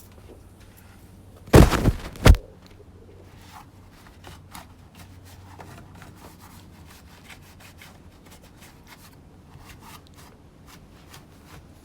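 Two loud knocks about three-quarters of a second apart, then scattered light clicks and rubbing of hands working on a chainsaw, likely while wiping sawdust out of it.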